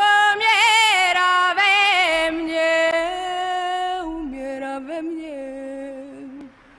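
A woman singing a slow Polish folk song, drawing out long notes with vibrato; the melody steps down about four seconds in and fades out near the end.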